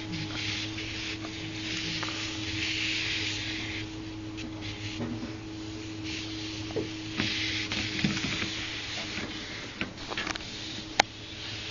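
Electric treadmill running, its motor giving a steady hum under the hiss of the moving belt, with light scattered taps and one sharp click near the end.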